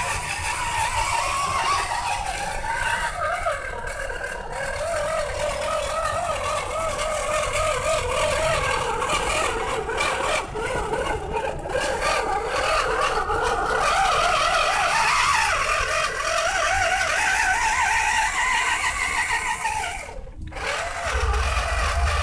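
Radio-controlled scale truck's electric motor and gear drive whining, the pitch rising and falling as it drives through mud, with a brief drop-out near the end.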